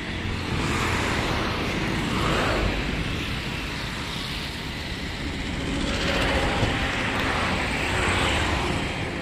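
Road traffic passing close by: a steady rushing noise that swells as vehicles go past, about two and a half seconds in and again from about six to eight seconds in.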